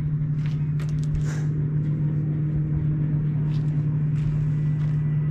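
A steady engine drone holding one even low pitch and growing slightly louder, with a few faint clicks over it.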